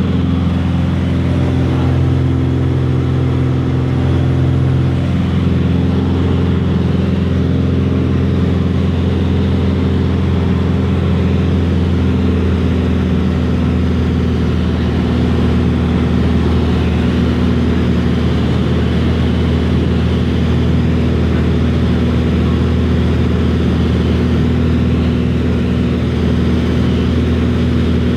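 Piston engine and propeller of a small aircraft in cruise, heard inside the cabin as a loud, steady, even drone; its note shifts slightly about five seconds in.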